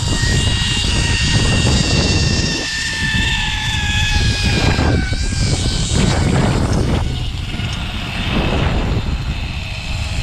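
Zipline trolley pulleys running along the steel cable at speed, a high whine that slowly falls in pitch and fades out about halfway through. Heavy wind rumble on the microphone from the rider's speed runs under it.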